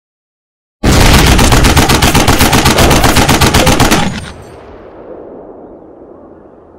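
Machine-gun fire: a sudden, loud, rapid burst of shots lasting about three seconds that cuts off abruptly, leaving a fading low echo.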